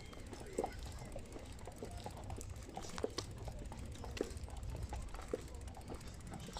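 A bicycle rolling along, with scattered clicks and rattles from the bike over a low steady rumble.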